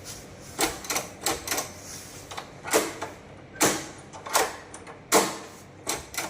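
Smart door lock hardware being worked by hand: an irregular series of about ten sharp metallic clicks and clacks.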